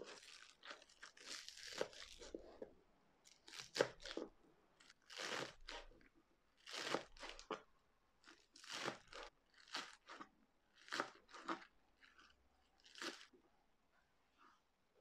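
Chef's knife slicing through a bunch of spring onions and knocking on a plastic cutting board, crisp crunchy cuts in short quick runs that stop shortly before the end.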